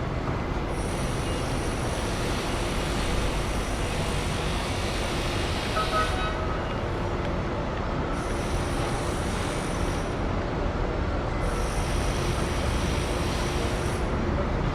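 City ambience: a steady rumble of traffic and passing rail vehicles. A thin high-pitched whine rises over it and drops away three times.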